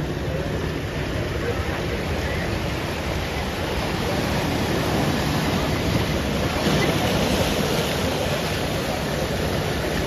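Ocean surf washing against shoreline rocks: a steady rushing that swells as a wave breaks about seven seconds in.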